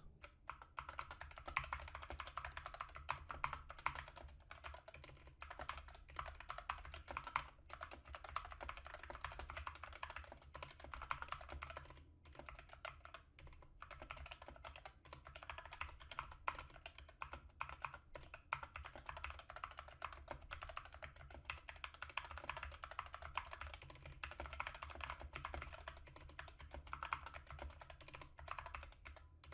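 Typing on an Epomaker SK61 60% mechanical keyboard with Gateron Yellow linear switches: a fast, irregular stream of soft clacks with a few short pauses. The keys sound clean and smooth rather than loud. A low, steady hum sits underneath.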